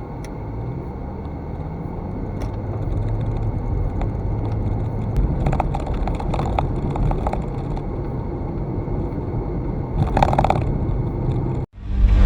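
Holden Commodore engine running steadily, with light clicks and clatter over it, louder briefly about ten seconds in; the sound cuts off suddenly near the end.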